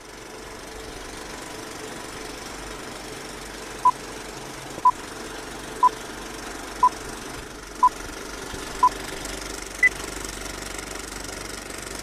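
Old film projector running with a steady clatter, over which a film-leader countdown beeps: six short beeps a second apart, then one higher beep a second later.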